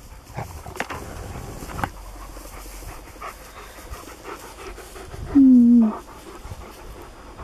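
Dog panting hard, a husky among them, with scattered rustles and clicks. About five seconds in there is a short, loud low call that falls slightly in pitch.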